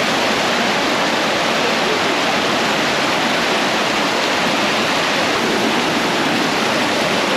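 Waterfall: a steady, loud rush of falling water close by.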